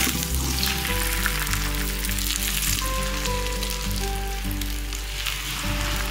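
Oil sizzling steadily under a stuffed paratha frying on a flat griddle (tawa) as it is turned and pressed with a spatula. Background music with held notes plays underneath.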